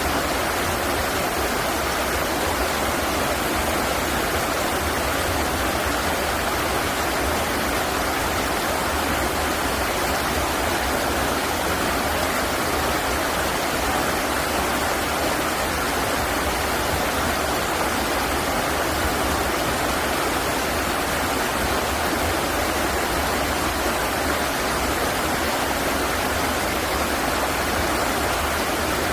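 River water flowing: a steady, even rush of water that does not change.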